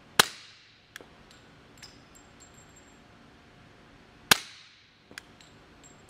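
Two suppressed shots from an H&K Mk23 .45 ACP pistol fitted with a Griffin Bushwhacker 46 suppressor, firing subsonic 230 gr ammunition, about four seconds apart. Each is a single sharp report with a short decaying tail, followed within a second by fainter clicks.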